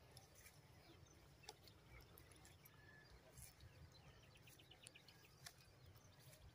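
Near silence: faint open-field ambience with scattered faint clicks and a short run of quick, faint chirps about four seconds in.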